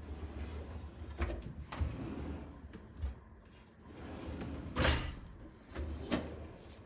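Modular kitchen drawers and cabinet shutters being opened and closed: a run of sliding and knocking sounds, the loudest a little past the middle.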